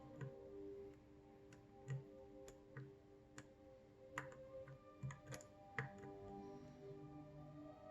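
Small, sharp, irregular clicks of a lock pick working the pins inside a Mul-T-Lock MT5+ high-security cylinder, about a dozen, over faint background music.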